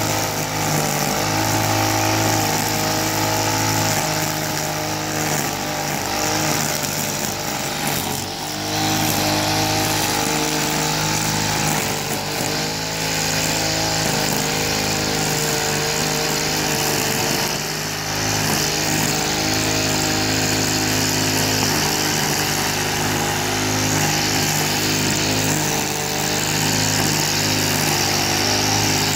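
KPT Shakti SPBC 38 petrol brush cutter's 38cc four-stroke engine running steadily while its nylon-line trimmer head cuts grass. The sound dips briefly a few times.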